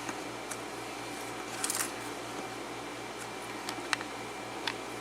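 Small brass lock pins and a pick or tweezers clicking and clinking as they are handled: a few scattered light metallic taps, with a short cluster of them about two seconds in, over a steady low hum.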